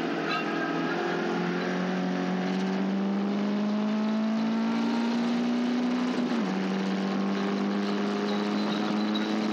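Caterham race car engine accelerating under load, revs climbing steadily in one gear, then a quick upshift about six seconds in that drops the pitch before it pulls up again.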